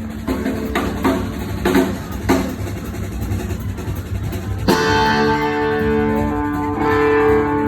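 Live band music: guitar and drum kit over bass, with short sharp strokes about every half second at first, then a full chord struck and left ringing about two-thirds of the way in.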